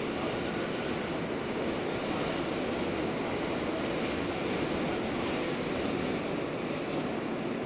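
Steady rumble of New York City subway trains heard from inside a subway car, as a stainless-steel train on the next track runs past.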